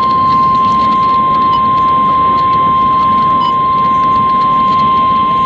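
NOAA Weather Radio 1050 Hz warning alarm tone: one steady, loud high tone heard over radio hiss with faint scattered crackles. It signals that a severe thunderstorm warning is about to be broadcast.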